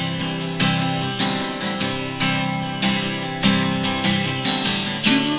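Acoustic guitar strummed, repeated chord strokes each ringing on and fading before the next.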